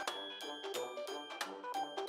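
Background music: a light tune of short pitched notes over a steady drum beat, about four beats a second.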